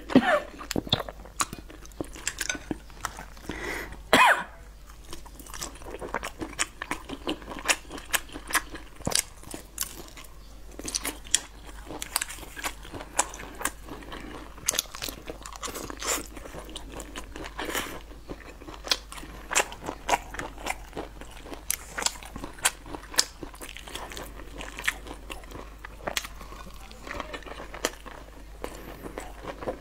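Close-miked eating: a loud slurp of thick noodles at the start and again about four seconds in, then steady chewing with many small wet mouth clicks and crunches.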